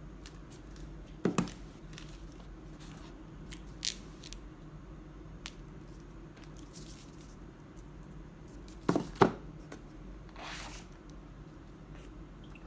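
Handling noises: a few sharp clicks and knocks, two of them doubled and the loudest about nine seconds in, with a brief rustle, over a steady low hum.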